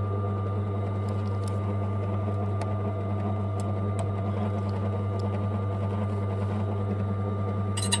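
Silca AY100 key cutting machine running steadily: a low motor hum with a thin whine above it. A few light clicks come through, and a sharper click near the end.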